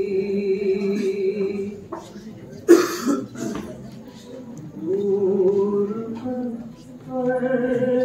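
A male voice reciting a naat unaccompanied, in long held notes. About three seconds in there is one loud cough.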